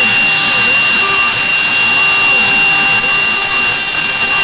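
Mini CNC router spindle whining steadily at one high pitch while a small end mill cuts carbon-steel sheet, with a scraping cutting noise that swells and fades in a repeating cycle as the tool moves through its path.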